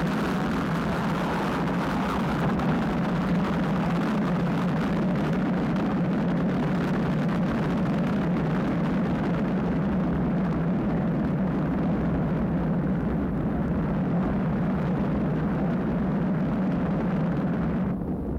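Space Shuttle Columbia's three liquid-hydrogen main engines firing together in a static test on the launch pad: a steady, loud, deep rush of noise that drops away about eighteen seconds in as the engines shut down.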